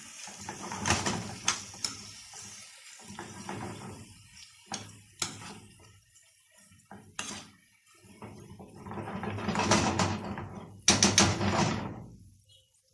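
A spoon stirring and scraping through onions, bell peppers and sauce in a frying pan, with scattered clinks of the spoon against the pan. The stirring is busiest at the start and again for a few seconds after the middle, then fades out.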